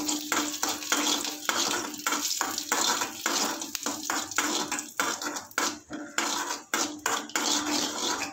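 Steel spoon scraping and clinking against a metal kadai, stirring cashews and raisins frying in ghee, a few strokes a second.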